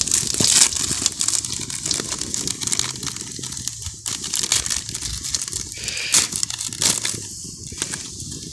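Small plastic spice packet crinkling in the hands as it is opened and emptied, in quick irregular crackles that are busiest in the first half.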